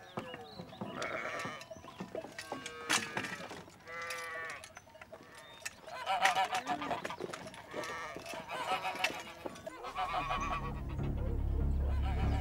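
Farmyard livestock bleating, a string of separate wavering calls. About ten seconds in, low sustained music comes in beneath the calls.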